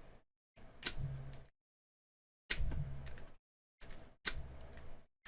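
Lock pick being zipped across the pin tumblers of a small Master Lock padlock: several separate bursts of sharp metallic clicking and scraping, each starting with a sharp click, as the pick is reinserted and yanked out again in repeated tries.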